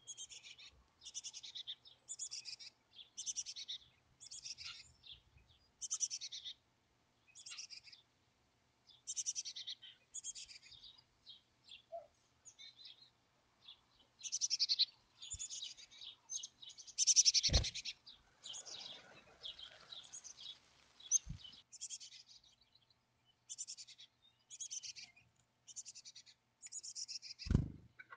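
Black-capped chickadee chicks begging from the nest cavity: short, high-pitched calls repeated about once a second. Two sharp clicks come through, one about 17 seconds in and one near the end.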